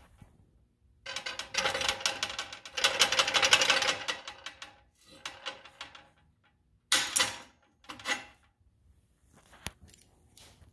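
Metal clicking and rattling of a locking adjustable wrench being worked by hand: a few seconds of rapid, dense clicking. Then two sharp metal clacks about a second apart.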